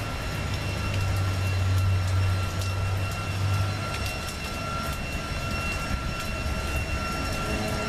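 A motor vehicle engine running, a low hum that drops away about four seconds in, over a steady high-pitched whine.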